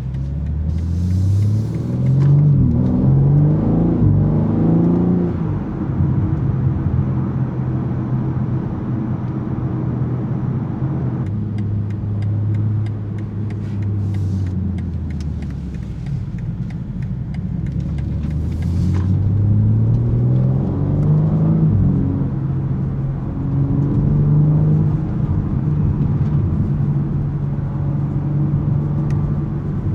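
BMW M3 Competition's S58 3.0-litre twin-turbo straight-six under way. It pulls hard through quick upshifts in the first few seconds, then cruises, eases off near the middle, and accelerates again before settling into a steady cruise.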